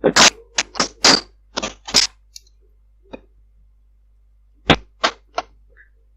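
Irregular series of sharp clicks and knocks heard over a Viber call line: a quick run of about seven in the first two seconds, a lone one a little after three seconds, then a tight cluster of three or four near the end.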